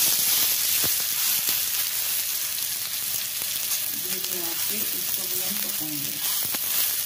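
Bread slice coated with semolina-and-yogurt batter frying in oil on a hot tawa griddle: a steady, dense sizzle, with a few light clicks as the slice is pressed down.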